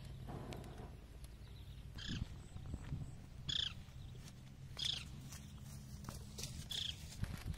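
An animal calling: four short, high calls spaced a second or more apart, over a low steady hum.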